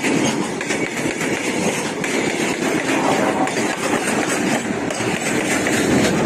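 Freight train wagons rolling past, their steel wheels running on the rails with a steady, fairly loud noise and many small irregular knocks.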